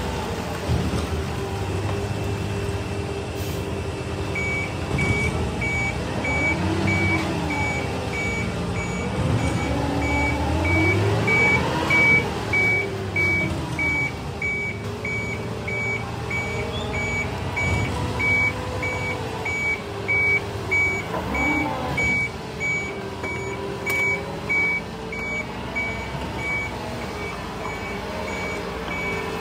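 Concrete mixer truck backing up: its engine revs up and down as it manoeuvres, and a few seconds in its backup alarm starts beeping at a steady, even pace.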